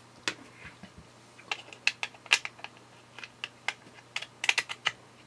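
Irregular sharp clicks and taps of plastic as a USB cable plug is pushed into and worked against the port of an opened power bank, its plastic case handled in the hand, with a quick run of clicks near the end.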